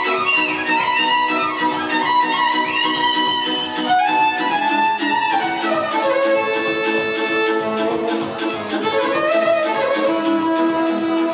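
Music led by a violin, with held and sliding notes, over a steady beat.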